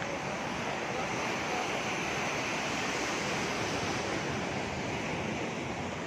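Ocean surf breaking along a sandy beach, a steady, unbroken wash of noise.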